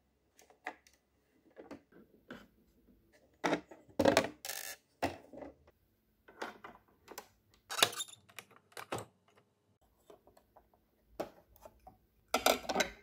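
Hard plastic clicks and clatter as coffee capsules are handled in a clear acrylic capsule drawer, a capsule is dropped into a capsule coffee machine and its lid shut, and the machine's fold-down cup tray is lowered. A series of separate sharp knocks, loudest about four and eight seconds in and near the end.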